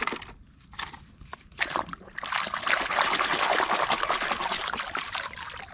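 Muddy water sloshing and splashing in a plastic basin as a hand scrubs a toy under the surface: a few separate splashes in the first two seconds, then continuous sloshing from about two seconds in that fades near the end.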